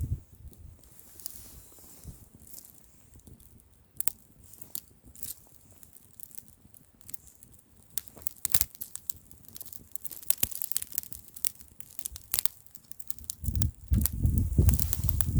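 Wood fire crackling, with sharp pops and snaps that come thickest in the middle. Near the end a loud low rumble of wind on the microphone rises.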